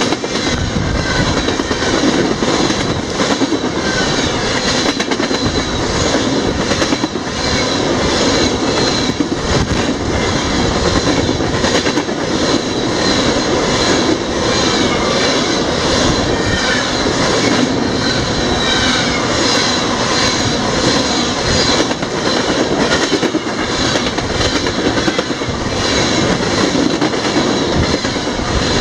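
Freight train tank cars rolling past close by: a steady loud rumble and rush of steel wheels on rail, with frequent small clicks and clatter from the wheels and couplers.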